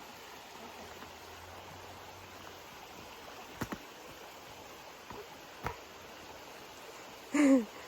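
Steady rush of a flowing stream, with two sharp clicks a few seconds apart. Near the end comes a short, loud vocal sound that falls in pitch, which is the loudest thing heard.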